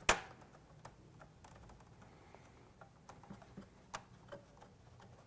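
Screwdriver and plastic printer parts being handled while screwing down the latches of the duplex cover: one sharp click right at the start, then light scattered ticks and taps.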